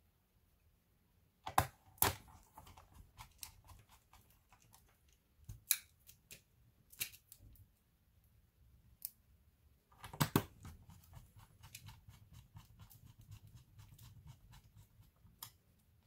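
Sharp clicks and knocks of a screwdriver and small tools being handled, scattered through the first part, then a double knock about ten seconds in followed by a quick run of light ticking.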